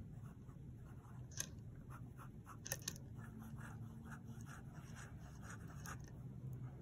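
Platinum 3776 fountain pen with a 14-karat gold music nib writing on grid paper: faint scratching of short, repeated strokes as letters and loops are drawn, with a couple of small clicks.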